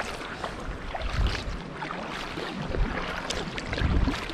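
Double-bladed sea kayak paddle working through the water: strokes splashing and water dripping off the blades in scattered ticks, with wind rumbling on the microphone in several gusts.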